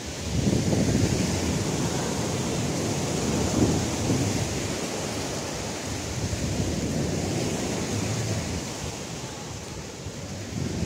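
Surf from a rough sea washing onto a sandy beach, under gusty wind rumbling on the microphone.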